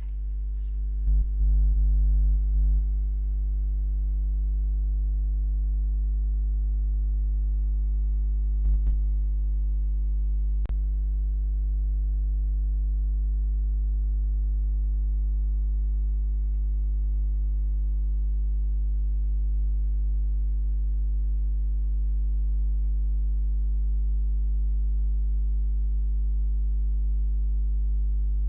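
Steady electrical mains hum, a low buzzing tone with its overtones, picked up by the recording. It has a few brief louder bumps in the first few seconds and once about nine seconds in.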